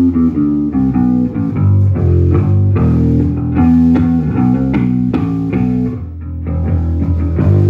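Electric bass guitar played alone during a sound check, a steady run of quickly changing low notes with sharp pick or finger attacks. It dips briefly about six seconds in, then carries on.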